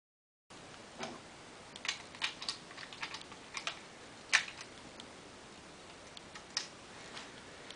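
Hard plastic clicks and clacks from a Lego brick rubber-band pistol's mechanism being worked in the hand: a string of irregular sharp clicks, the loudest about four seconds in.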